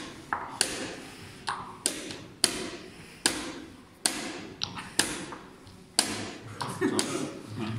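Quick, irregular clacks of wooden chess pieces being set down on the board and chess clock buttons being pressed in a fast blitz game: about a dozen sharp knocks, each with a short ring.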